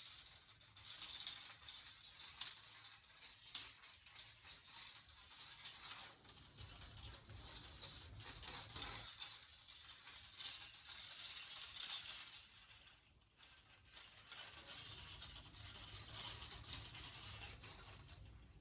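Faint, continuous scratching and rattling of thin bare copper wire being unwound from a small spool and balled up by hand, with many small ticks.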